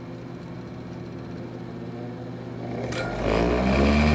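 Pedal-controlled motor of a homemade wire-twisting rig spinning a drill chuck to wrap 36 gauge nichrome wire around 22 gauge: a steady hum that speeds up with a rising whine about three seconds in and then runs loud.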